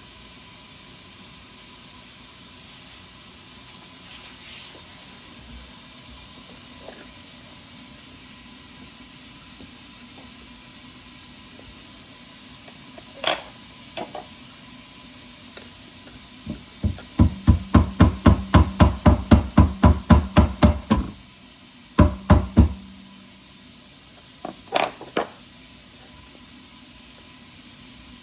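A fast series of sharp knocks, about four a second for some four seconds, with a few single knocks before and after, over quiet room tone.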